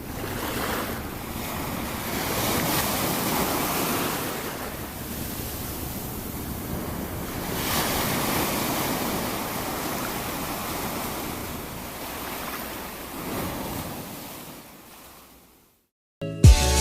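Ocean surf: waves breaking and washing in, swelling louder every few seconds, then fading out to silence near the end.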